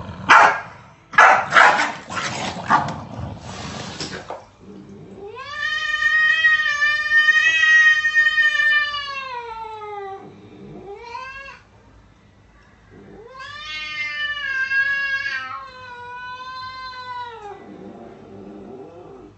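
A corgi barks a few sharp times. Then a cat caterwauls in long drawn-out yowls: one of about five seconds that rises and then sinks in pitch at the end, a brief one, and another of about four seconds.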